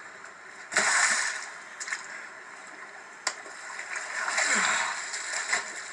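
Water splashing and sloshing as a man thrashes and struggles up out of shallow water, heard from a television soundtrack recorded off the screen. A loud splash comes about a second in and a second surge of splashing around four and a half seconds in.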